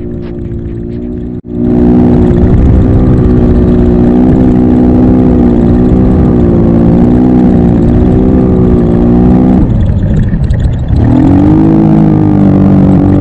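150cc GY6 single-cylinder four-stroke scooter engine in a Power Wheels go-kart running hard at steady high revs, with wind noise. About eight seconds in it drops off briefly, then revs back up near the end.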